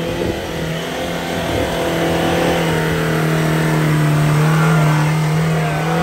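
An off-road 4x4's engine held at high, steady revs as it climbs a muddy slope under load, having just found grip. It grows louder toward about five seconds in.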